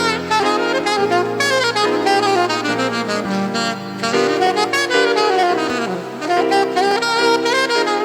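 Saxophone playing an expressive melody with quick runs and sliding notes over sustained low accompaniment.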